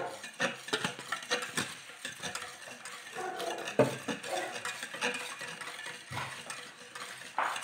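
Wire whisk stirring a thick cream-and-milk mixture by hand in a stainless steel bowl, with irregular clicks and scrapes of the whisk against the metal.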